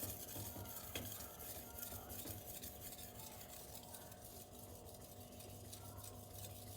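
Knife blade being stroked freehand across a 1000-grit silicon carbide whetstone with light pressure: a quiet, muted scratching, over a steady low hum.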